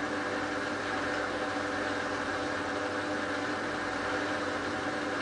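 Hotpoint Ultima WT960 washing machine spinning, its motor and drum giving a steady hum and whir with no change in speed.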